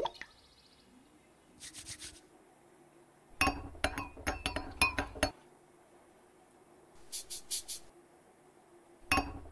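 A metal spoon stirring in a drinking glass, clinking against the glass in two quick runs of light taps.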